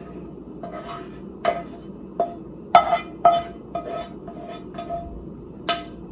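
A utensil scraping and tapping against a frying pan as food is knocked out of it into a bowl. It makes a string of short clinks, each with a brief ring, and the loudest two come about three seconds in.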